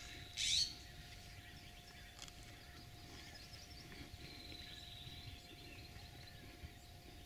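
Faint birds calling in the background: a short, sharp rising chirp about half a second in, and a long thin high whistle around the middle, over quiet outdoor ambience.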